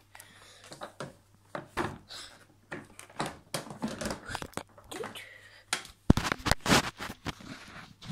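Handling noise from a phone being moved about by hand: irregular clicks, knocks and rubbing, louder and denser about six seconds in.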